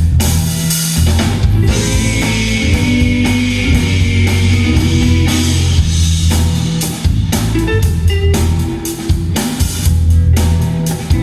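Band playing an instrumental passage with drum kit, guitar and bass, the cymbals washing over the first half.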